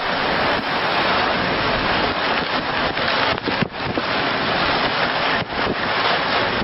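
Loud, steady rush of wind and breaking sea waves, like a storm at sea, with a few brief dips and cracks in the noise.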